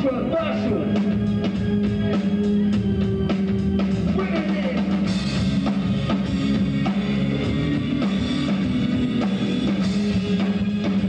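Live rock band playing: a drum kit keeps a steady beat under electric bass and guitar holding long sustained notes.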